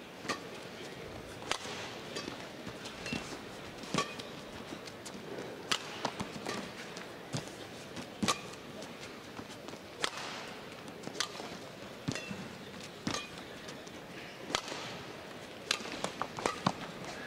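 Badminton rally: rackets hit the shuttlecock in sharp cracks every second or two, with brief squeaks of shoes on the court and a steady hum from the arena crowd.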